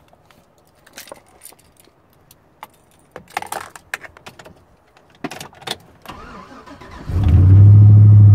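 Keys jangling and clicking at the ignition of a Chevrolet Silverado pickup, then the engine starts about seven seconds in and runs loud and steady.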